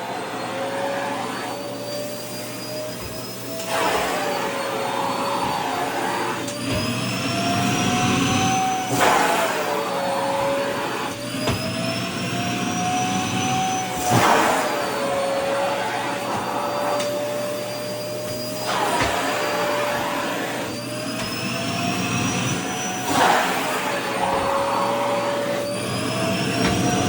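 Vacuum cleaner running with its motor whine slowly rising in pitch, then dropping with a sudden rush of air about every five seconds, as skirt fabric blocks the nozzle and is pulled free.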